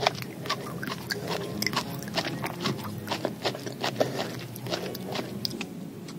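Close-miked mouth chewing of coconut worms (palm weevil larvae): a dense, irregular run of wet smacks, squelches and clicks.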